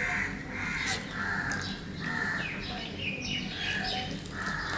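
Crows cawing, a run of short harsh caws about one every second or less. Under them runs a faint steady hum.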